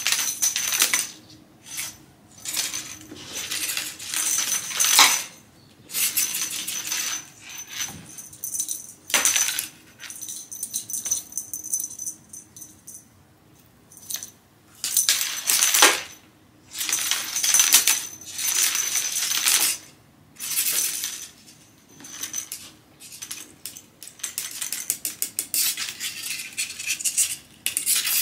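Battery-powered motorised feather cat toy running in irregular spurts of one to four seconds with short pauses between, a high motor whine under the rattling of its plastic wand and wire.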